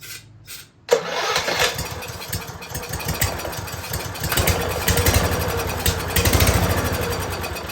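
Single-cylinder Kohler XT650 (149cc) mower engine spun by its electric starter, catching about a second in and running raggedly on the fuel squirted into its intake, then winding down near the end. That it fires shows it has compression and spark, and points to a problem with the old fuel.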